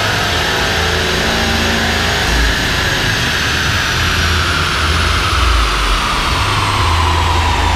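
Subaru WRX STI on a chassis dynamometer coasting down after a power pull: a whine from the spinning rollers and drivetrain falls slowly and steadily in pitch over a constant rush of noise and a low rumble.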